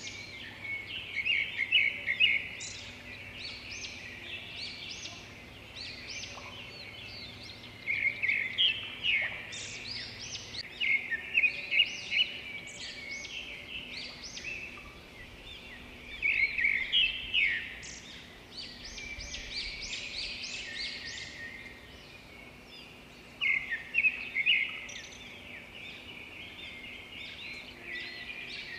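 Birds chirping in quick bursts of chatter, four louder bouts with quieter chirping between.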